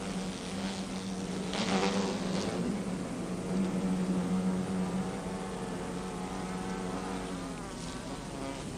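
Bumblebees buzzing in the nest: a steady low drone, swelling briefly with a rustling hiss about two seconds in.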